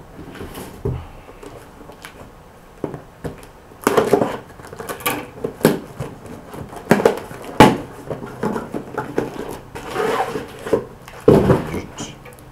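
Packing material rustling and crinkling in irregular bursts as a parcel is rummaged through and unpacked, with a few sharp knocks from items being handled.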